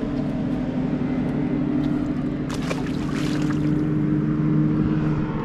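A motorboat's outboard engine running at a steady speed, with an even hum. A short scuffing noise comes about two and a half seconds in.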